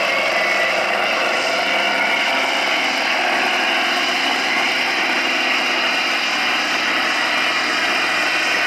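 Massey Ferguson farm tractor's diesel engine at full throttle, running steadily under heavy load as it drags a tractor-pulling sled.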